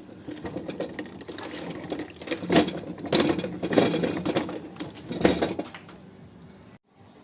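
Grapes being mashed in a hand-turned grape crusher: irregular wet squelching of crushed berries and juice, louder in the middle and cut off abruptly near the end.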